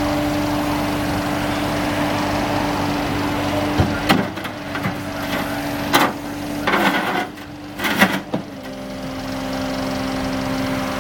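CAT 259D skid steer's diesel engine running steadily. From about four to eight seconds in, the engine note drops back and there are several sharp clanks and knocks, then the steady running picks up again.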